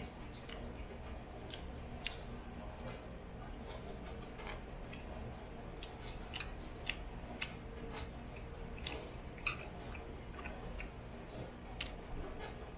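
Cutlery clicking and tapping on a plate while eating, about a dozen sharp light clicks at irregular intervals over a low steady hum.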